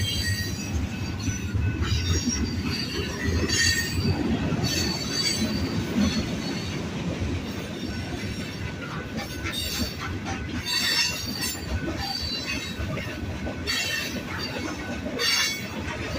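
Freight train rolling past close by: a steady rumble of wheels on rail with high-pitched wheel squeal that comes and goes many times.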